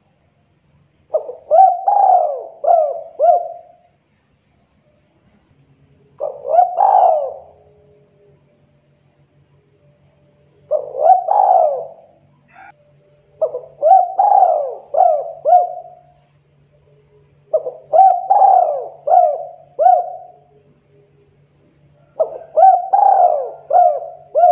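Spotted dove (tekukur) cooing: six loud phrases, each a quick run of two to five coos that rise and fall in pitch, coming every four seconds or so.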